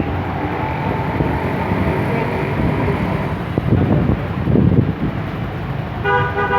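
Freshly overhauled Bajaj CT100's single-cylinder four-stroke engine running steadily. A horn sounds about six seconds in.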